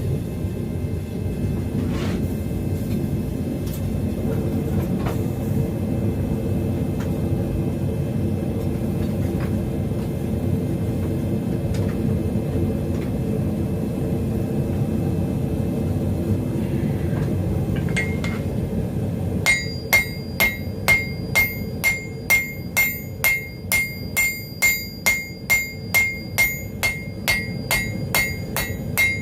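Propane gas forge burner running with a steady low rumble; about two-thirds of the way in, a hammer starts striking hot steel on the anvil in quick, even blows, about two a second, each with a bright ring, to set a forge weld.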